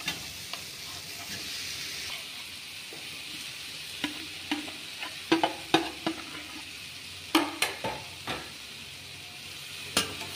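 Spiced tomato masala sizzling gently in a stainless steel kadai while boiled potato pieces are scraped in from a plate with a spoon, the spoon clinking sharply against the plate and pan a few times, mostly in the second half.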